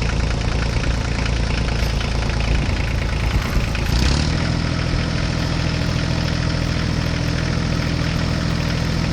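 Toy remote-control tractor running with a steady engine drone. About four seconds in, a short rush of noise is followed by a steadier, more even drone.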